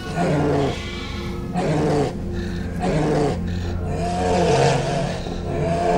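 Sheep bleating repeatedly in wavering calls, with a steady low drone underneath.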